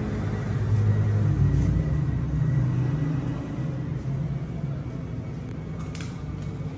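A 250cc sport-bike replica's engine idling, a steady low rumble that swells for a couple of seconds and then eases off. A sharp click near the end.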